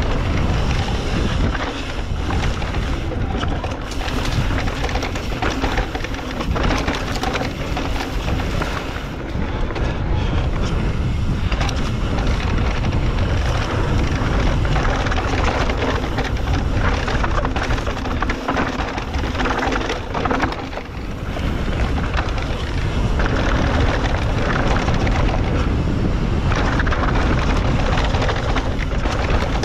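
Wind rushing over an action camera's microphone while a 2021 YT Decoy electric mountain bike rides a rough trail. A steady loud noise is broken by many small knocks and rattles from the tyres and frame.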